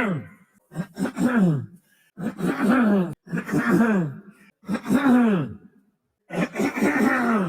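A man clearing his throat and coughing over and over, about five voiced, groan-like throat-clears in a row, each falling in pitch, with short gaps between them.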